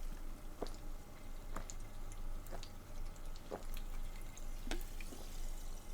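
Faint short clicks, about one a second, over a low steady hum.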